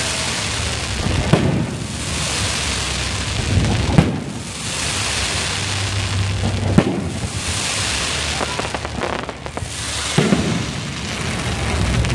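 Aerial firework shells bursting: a sharp bang about every three seconds, over a steady crackling hiss from the glittering trails.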